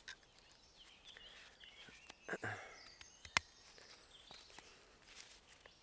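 Quiet woodland with faint birdsong, broken by a few sharp clicks from a knife working a wooden stick, the loudest about three and a half seconds in.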